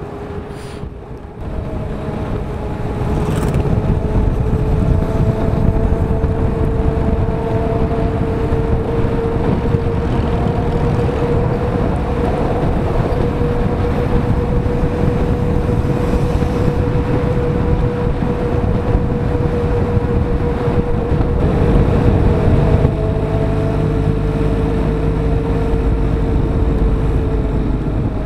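Onboard sound of a diesel motorcycle riding at steady road speed: the engine running under heavy wind rush, with a steady whine. The low end of the engine sound changes in the last few seconds.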